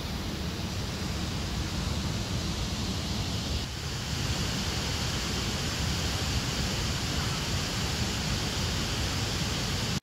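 A waterfall and river rapids rushing steadily, getting a little hissier from about four seconds in.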